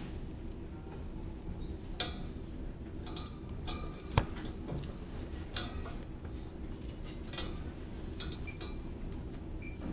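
Four short, sharp metallic clinks spread over a few seconds against a steady store background hum; the first, about two seconds in, is the loudest.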